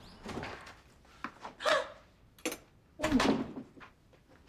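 Dishes and bowls being set down on a dining table: a handful of short knocks and clinks spread over a few seconds.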